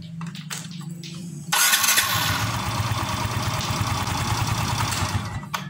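Yamaha Mio M3 scooter engine test-run after its starter dynamo was cleaned of carbon-brush residue. The engine hums low, jumps up loud about a second and a half in and runs steadily, then cuts out abruptly near the end. The shutdown comes without the growl it used to make when switched off.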